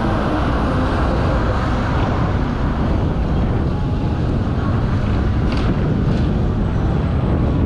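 Hong Kong double-deck tram running along the street track: a steady rumble of wheels and motor, with wind buffeting the microphone.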